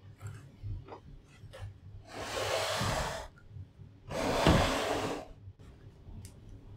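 Wooden router carriage of a plywood cylinder-making jig slid along its wooden rails and back, two rubbing swishes of about a second each with the second the louder. A few light clicks come before them.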